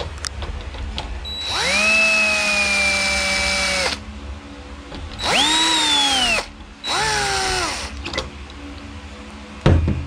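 A DeWalt 10.8 V cordless drill driving the mounting screws of a deadbolt's thumb-turn plate into a wooden door, in three runs: a long steady one of about two and a half seconds, then two shorter ones, the motor's whine dropping in pitch as each run ends. A sharp knock comes just before the end.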